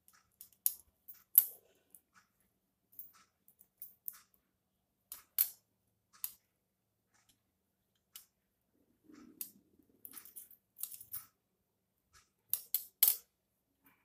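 Knitting needles clicking against each other in short, irregular taps while a purl row is worked, with a quick cluster of sharper clicks near the end.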